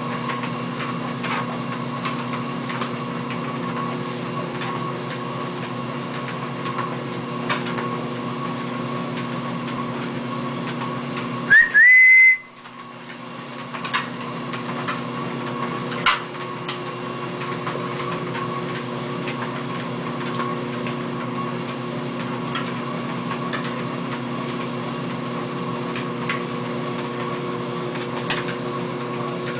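Motorised treadmill running steadily, a constant hum with faint irregular taps of a dog's paws on the moving belt. About twelve seconds in, a short, loud whistle rising in pitch.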